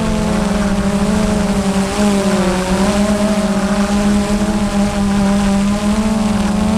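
Quadcopter drone's electric motors and propellers whining steadily, picked up by its onboard camera, with the pitch wavering and dipping briefly about two and a half seconds in as the motor speeds shift. Wind buffets the microphone underneath.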